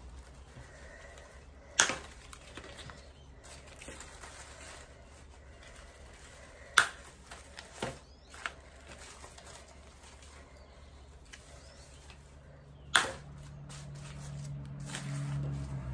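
Wire snips cutting through the wire-cored stems of silk hydrangea flowers. Three sharp snaps, about two, seven and thirteen seconds in, with a couple of lighter clicks shortly after the second.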